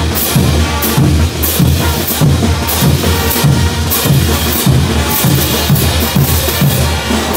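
Bolivian brass band playing a morenada: hand cymbals crashing about twice a second over bass drums, snare drums and brass.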